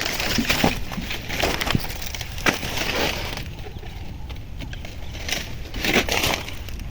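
Dry maize stalks and husks crackling and rustling as the cobs are pulled off by hand, with a few sharp snaps.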